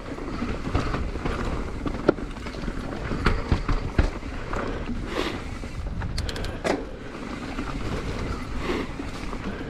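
Mountain bike rolling down a dirt forest trail: steady tyre noise, with the bike rattling and clattering over bumps and several sharper knocks along the way.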